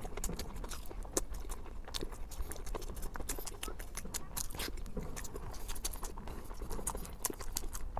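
Close-miked eating: wet chewing and mouth smacking, heard as a fast, irregular run of small clicks.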